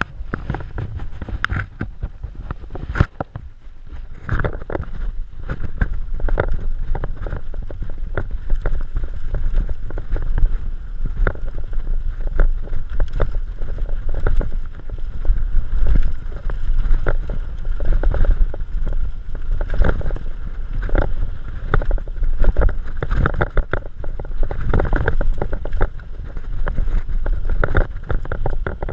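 Wind buffeting a bike-mounted microphone while a Merida mountain bike rides a bumpy dirt-and-grass trail, with a constant low rumble and frequent irregular knocks and rattles from the bike over the ground. It gets louder about four seconds in.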